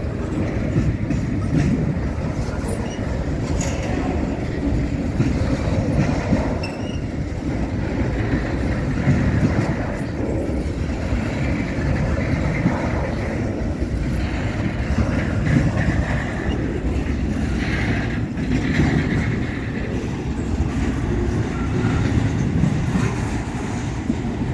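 Intermodal freight train cars rolling past close by at steady speed: a continuous low rumble of steel wheels on rail, with clicks as the wheels cross rail joints.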